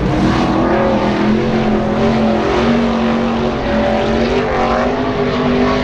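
A NASCAR Camping World Truck Series race truck's V8 engine running at speed on a qualifying lap of a half-mile dirt oval: a loud, continuous engine note that drifts slightly up and down in pitch as the truck goes around.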